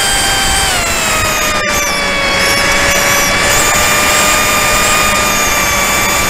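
Radio-controlled model airplane's motor and propeller whining steadily in flight, heard from the onboard camera, its pitch dropping slightly about a second in. Heavy wind rush on the microphone runs underneath.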